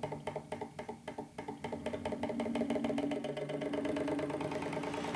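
Small gas-fired Stirling engine generator running with a fast, even rhythm, growing louder about two seconds in as it picks up speed once the electrical load is taken off it.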